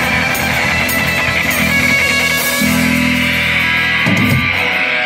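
Live rock band playing loud: electric guitars, bass guitar and drums. About four seconds in, a low note slides down, and the low end then cuts out.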